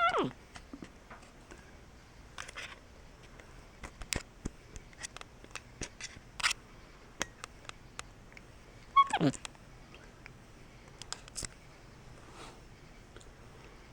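Black-capped capuchin monkey giving two short calls that fall steeply in pitch, one at the start and one about nine seconds in, with scattered faint clicks between them.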